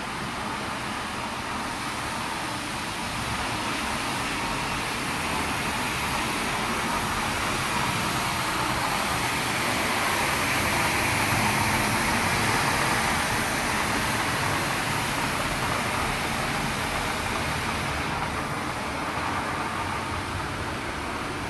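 BENNETT H860B ride-on floor scrubber running: a steady machine noise that grows louder toward the middle and eases off again near the end.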